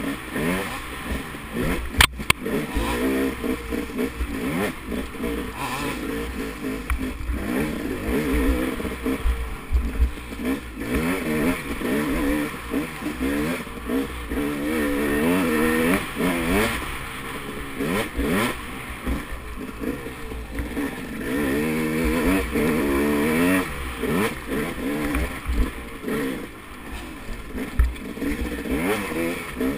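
Dirt bike engine being ridden hard, its revs rising and falling continually as the throttle is worked on and off, with clatter from the bike over rough ground. A sharp knock comes about two seconds in, and a low wind rumble sits on the microphone throughout.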